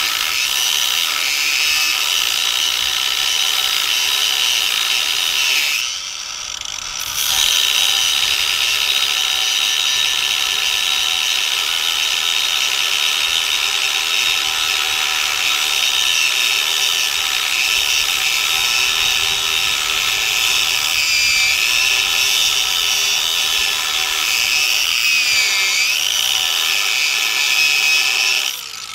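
Angle grinder cutting into the bike's metal motor mount, a steady high whine that drops out for about a second around six seconds in, wavers in pitch under load later on, and stops just before the end.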